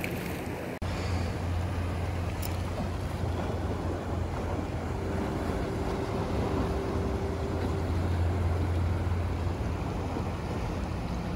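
Wind rumbling on the microphone over water sloshing against an inflatable boat, after a brief dropout less than a second in. A faint steady tone comes in about five seconds in and lasts about three seconds.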